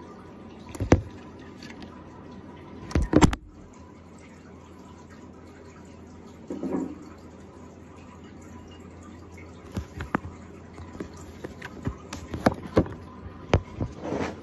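Sharp knocks and taps against the camera from an African bullfrog lunging at it: one about a second in, a double knock around three seconds, then a quick run of knocks near the end.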